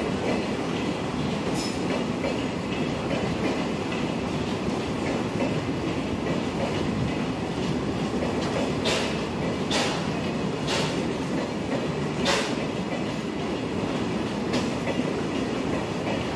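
LHB air-conditioned coaches of a Duronto express running through a station without stopping: a steady rolling rumble of wheels on rail, with a handful of sharp wheel clacks in the second half.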